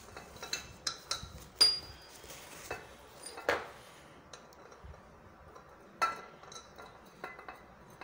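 Irregular metal clicks and clinks as a refrigerant hose fitting is threaded onto the tap valve of an R-134a gas can; the loudest clink rings briefly about a second and a half in.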